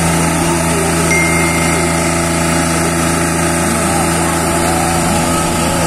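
Tractor diesel engines running steadily with an even drone, pulling against each other in a tractor tug-of-war.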